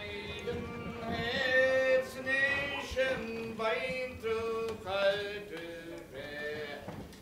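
A man singing a slow song, moving from one long held note to the next.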